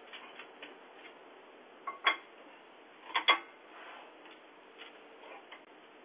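Clicks and knocks of objects being handled and shifted as someone rummages through things on a porch: light scattered clicks, two sharp louder knocks about two seconds in and another close pair just after three seconds. Heard thin and narrow through a doorbell camera's small microphone over a faint steady hum.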